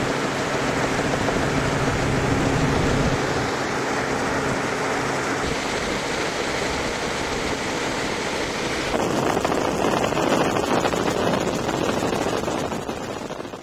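Steady engine and wind noise of a small aircraft in flight, heard from inside the cabin, with a low engine hum. The sound changes about nine seconds in and fades out at the end.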